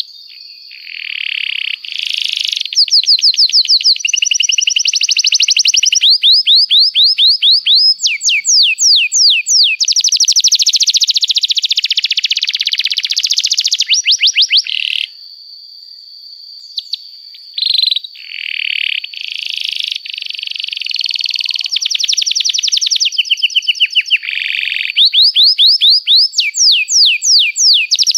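Canary singing a long, fast song of rapidly repeated trills and chirps, with a short pause about halfway through.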